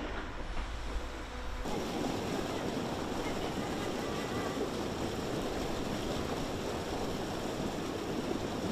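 A low hum that cuts off suddenly about a second and a half in, then the steady rush of flowing river water.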